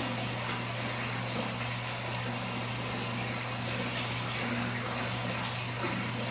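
Water running steadily into a tub or basin, an even rush of noise with a low steady hum underneath.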